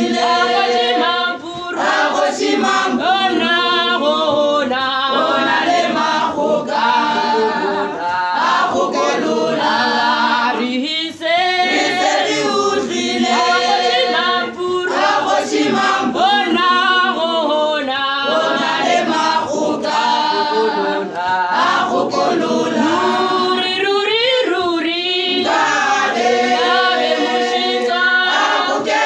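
Female choir singing unaccompanied in Sotho, several voices together in continuous sung phrases.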